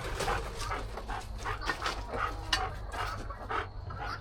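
Dog panting and moving about close by, in short irregular puffs about two a second.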